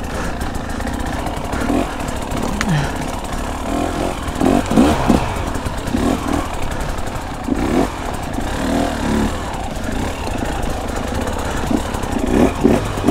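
Two-stroke enduro dirt bike engine revving up and down in repeated bursts of throttle while it is ridden up a rocky creek bed, over a steady low rumble.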